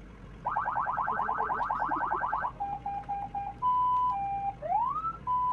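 Electronic vehicle anti-theft alarm sounding and cycling through its tones. It starts about half a second in with a fast warble of about ten sweeps a second, then switches to a run of short beeps, steady alternating high and low tones, and a rising whoop near the end.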